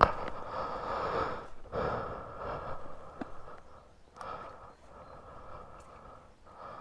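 A person breathing in and out heavily, close to a helmet-mounted microphone, in several slow swells that fade after about three seconds. A sharp click comes right at the start.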